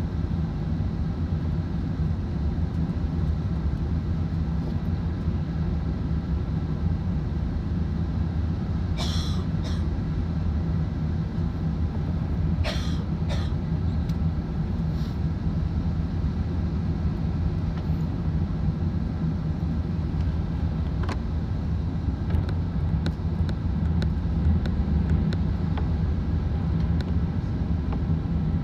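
Airbus A380 cabin noise on final approach: a steady low rumble of the engines and airflow, with flaps extended. A few short sharp noises come near the middle.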